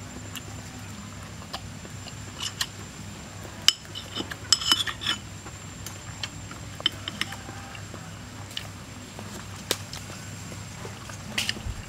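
Metal fork and spoon clinking and scraping against a ceramic bowl while eating: scattered light clinks, with a quick cluster of several about four to five seconds in.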